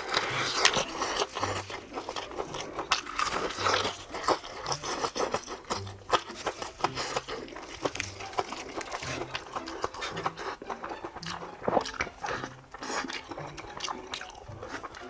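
Close-up crunching and chewing of crispy fried chicken: irregular crackly bites with scraping and crackling between them.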